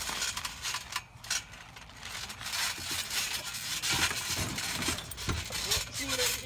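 Trampoline springs creaking and rattling as two players jump and jostle on the mat, with a few dull thumps of landings in the second half.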